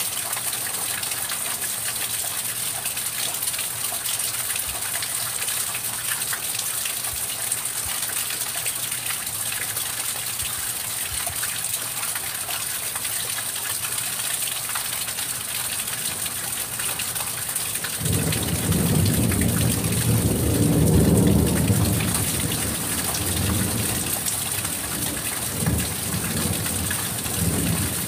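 Steady rain falling, with a roll of thunder that breaks in suddenly about two-thirds of the way through, swells, then rumbles on more unevenly as it fades.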